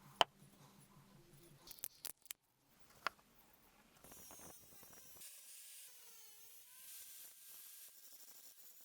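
Quiet hand-tool work on an old rusty axe: a few sharp clicks and knocks, then from about halfway a steady faint scraping hiss.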